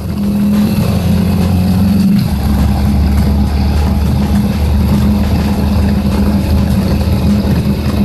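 Honda Super Cub's single-cylinder four-stroke engine running under way, with a steady hiss of wind and road noise; the engine note drops about two seconds in, as with a gear change or easing off the throttle.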